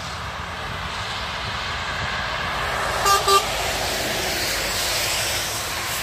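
A passing truck sounds its horn in two short toots about three seconds in, over the steady hiss and rumble of motorway traffic on a wet, slushy road.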